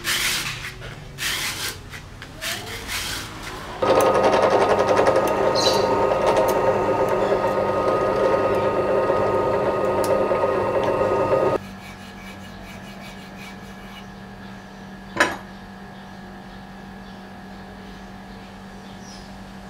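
Wood rubbed on sandpaper in short strokes, then a bench drill press running and boring into a wooden knife-handle block for about eight seconds before cutting off abruptly. After that comes a quieter steady hum with one sharp click.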